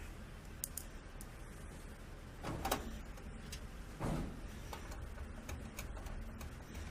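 A screwdriver driving a screw into a card reader's mounting in a computer case: a few light clicks and knocks, the loudest about two and a half seconds in, over a low steady hum.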